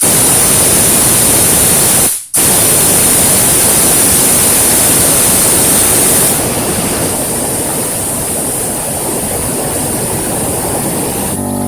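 Compressed air hissing continuously from an air-hose nozzle blown into a brake caliper's fluid port to force the pistons out, with one brief stop about two seconds in. A steady motor hum starts near the end.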